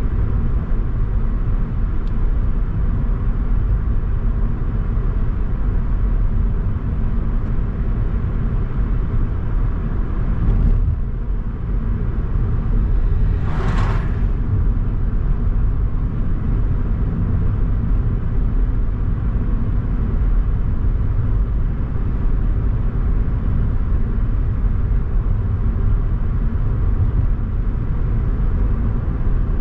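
Steady low rumble of a car driving along a road, engine and tyre noise. About 14 seconds in there is a brief whoosh.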